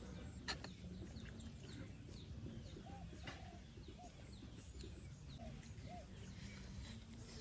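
Birds calling in the background: a handful of short low arched calls in the middle, among many faint high chirps, over a low steady hum.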